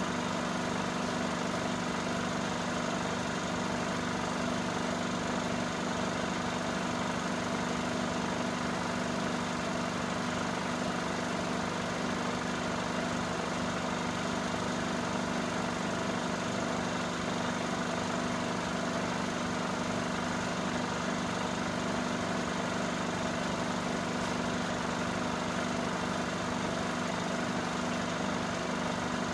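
Cine film projector running: a steady motor hum with a fast mechanical whirr from the film transport, unchanged throughout.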